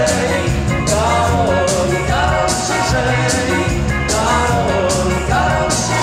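Dance band playing an upbeat number, with a steady beat, bass and a melody line that glides up and down.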